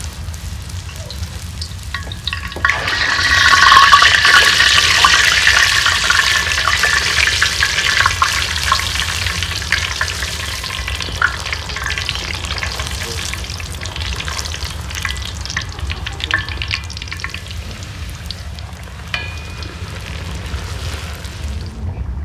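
Pişi dough deep-frying in hot oil in a steel pan, sizzling and crackling. The sizzle swells sharply about three seconds in, then slowly eases off, with scattered sharp pops.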